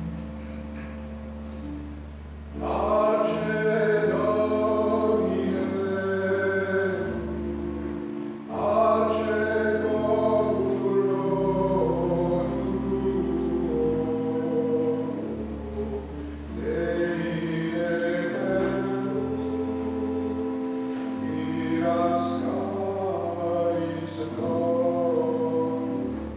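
Choir singing sacred music over long held low chords; the chords sound alone at first and the voices come in about three seconds in, singing in long phrases.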